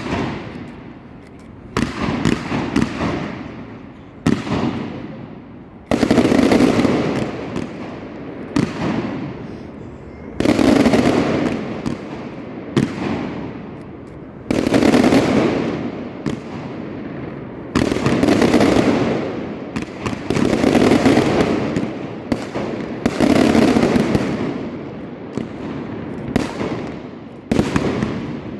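Fireworks display: aerial shells bursting one after another every two to three seconds, each a sharp bang followed by a crackle that fades over a second or two.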